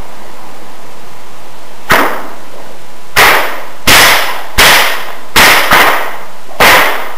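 A 6-foot Noreast Whips bullwhip cracking seven times: one crack about two seconds in, then a quick run of six more roughly every half to three-quarters of a second, two of them close together. Each crack is sharp, with a short echo after it.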